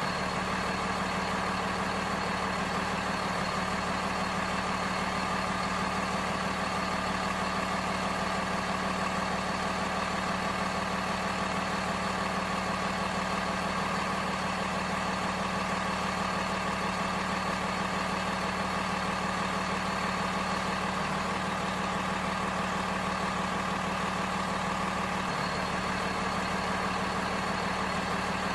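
Steady, unchanging idling truck-engine sound, a simulated engine note for a Huina RC dump truck. It holds the same pitch and level throughout.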